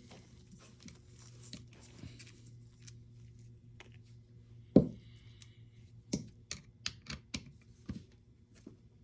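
Small parts of an airsoft gun's gearbox being handled on a workbench: faint scratching and rustling, then one loud knock, then a quick run of about seven sharp clicks and taps.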